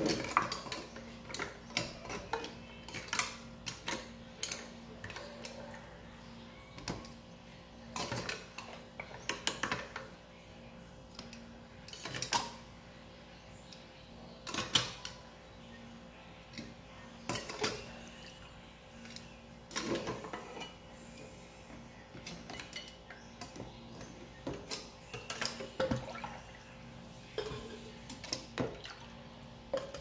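Metal kitchen tongs clinking and scraping against a nonstick pot and the plastic feeding-bottle parts inside it, in irregular clusters of short knocks and clatters as the sterilized parts are picked out one by one.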